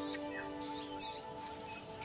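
Background music with long held notes that fade out, with a few short bird chirps over it.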